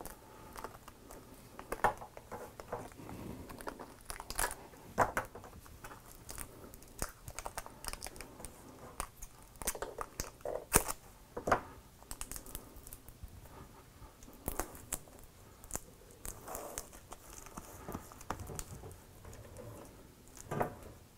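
Kapton tape being pulled off the roll and pressed down over crinkly foil-covered oven insulation, with scissors snipping the tape and scattered sharp clicks from handling, all fairly quiet and irregular.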